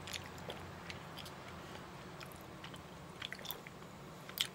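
Quiet mouth sounds of drinking milk from a carton: gulps and small wet clicks, with scattered faint clicks and a slightly sharper one near the end.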